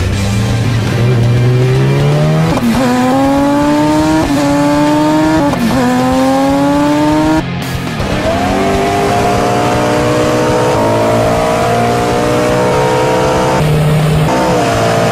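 A high-revving performance engine accelerating hard on a dynamometer. Its pitch climbs steadily and drops sharply twice at gear changes, then breaks off and starts a longer, slower climb.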